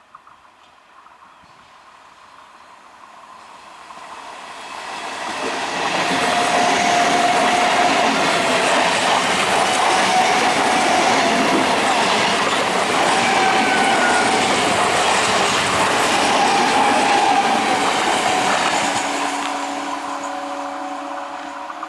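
Electric passenger train passing close by: the rumble and clatter of wheels on rail swell over a few seconds, stay loud for about a dozen seconds with faint wheel squeal, then die away. A steady low tone sets in near the end.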